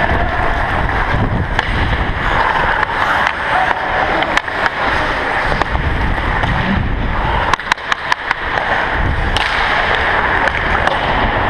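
Hockey skate blades carving and scraping on rink ice while the skater is moving, with rushing wind on the body-worn camera's microphone. A quick run of sharp clacks comes about two-thirds of the way through.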